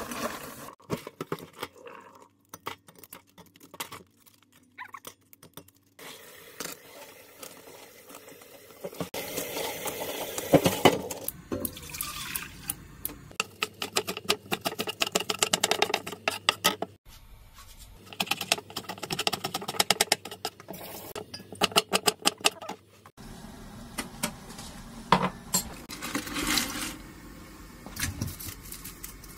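Kitchen prep sounds in sequence. Tap water runs over crab claws in a stainless steel bowl, and a knife chops green onion on a wooden cutting board in quick, even strokes.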